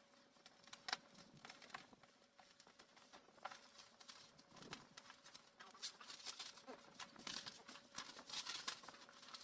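A parcel's plastic packaging being opened by hand: irregular crinkling, rustling and tearing with sharp clicks, busier in the second half.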